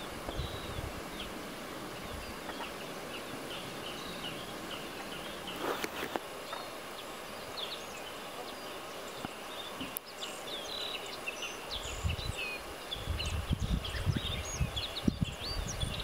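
Wild birds singing and calling: many short chirps and whistles from several small birds, busier in the second half. Wind rumbles on the microphone near the start and again from about three-quarters of the way in.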